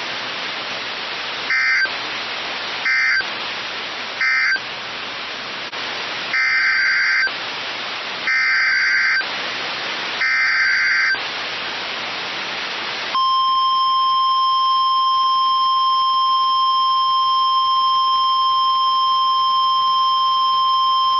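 NOAA Weather Radio alert signalling over a background of radio hiss. First come three short screeching data bursts, the end-of-message code that closes the previous warning. Then come three longer data bursts, the SAME header of a new warning, followed about two seconds later by the steady 1050 Hz warning alarm tone, which holds for about nine seconds.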